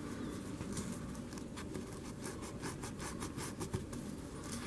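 Abrasive pad scrubbing surface rust off the steel hammer and frame of an H&R Model 732 revolver in quick back-and-forth strokes, several a second.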